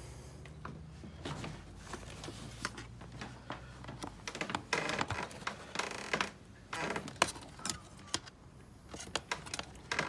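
Small clicks and rattles of hands working plastic parts and fitting wire connectors onto the dishwasher pump's terminals, with a low steady hum for about the first four seconds.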